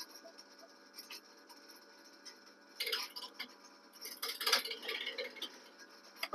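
Small clicks and handling noises at a switched-off scroll saw as the blade is fastened in its clamp and the wooden rose blank is moved on the saw table, with short bouts of scraping about three seconds in and again four to five seconds in.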